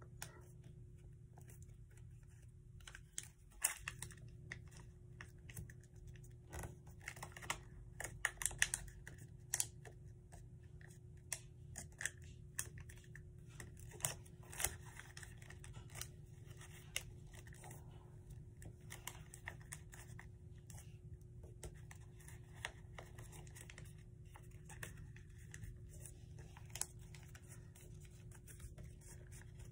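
Paper being folded and creased by hand: intermittent crinkles, rustles and sharp taps of the paper against the work surface, busiest a few seconds in.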